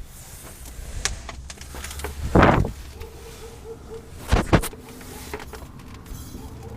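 A few scattered knocks and clunks, the loudest about two and a half seconds in, then a sharp double knock a couple of seconds later, with a faint steady hum in the background.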